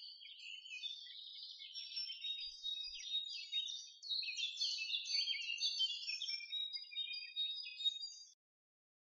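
Birds chirping and twittering, many quick high chirps overlapping, cutting off suddenly near the end.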